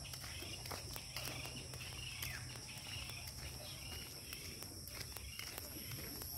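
Footsteps on a gravel dirt road at a walking pace, irregular small crunches, with a steady high-pitched insect buzz and short bird chirps.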